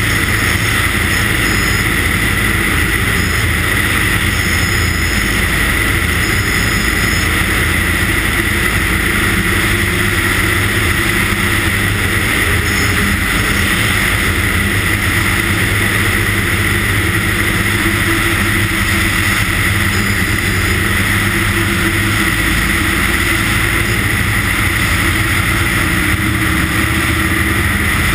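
Light aircraft engine running steadily in flight, one constant drone that holds its pitch throughout.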